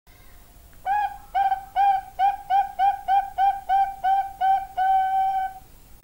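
Zebra dove (perkutut) singing its cooing song: a quick run of about a dozen short, rising coos at roughly three a second, ending on one longer held note.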